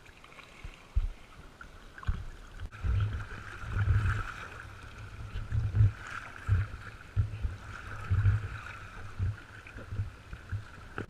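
Paddle strokes and water splashing and lapping around a small paddled boat, with irregular low thumps roughly every half second to a second.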